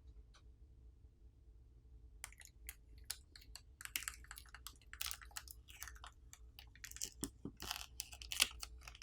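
Adhesive pull pouch being peeled back from a smartphone battery: a dense run of crinkling, crackling plastic-film sounds that starts about two seconds in and grows louder toward the end.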